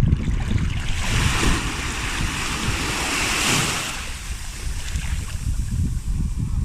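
Sea waves on a beach: one wave breaks and washes up in a hiss that swells and peaks about three and a half seconds in, then fades. Under it, a steady low rumble of wind buffeting the microphone.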